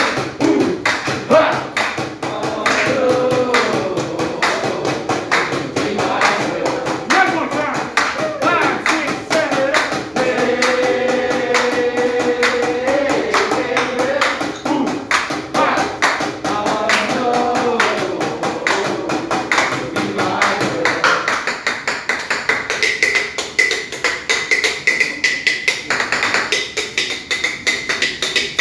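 A sung tune over rapid, steady metal tapping of spatulas on a teppanyaki griddle. About two-thirds of the way through the singing stops and the tapping goes on alone.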